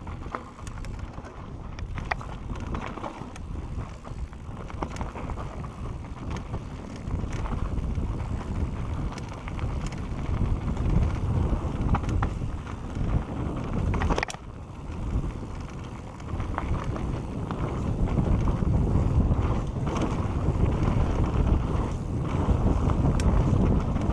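Mountain bike descending a dirt singletrack at speed: wind rumbling on the action camera's microphone, tyres rolling over dirt, and the Santa Cruz Bronson's frame, chain and suspension rattling in scattered sharp clicks. The rumble gets louder toward the end.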